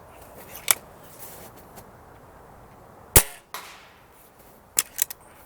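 A Crosman Phantom .22 break-barrel pellet rifle firing one shot, a single sharp crack about three seconds in. Smaller sharp clicks come about a second in and in a quick cluster near the end.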